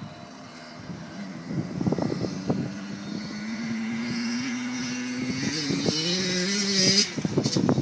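Distant motocross bike engine accelerating, its note rising in several steps before it breaks off about seven seconds in. Gusty rumbling wind noise on the microphone comes and goes around it.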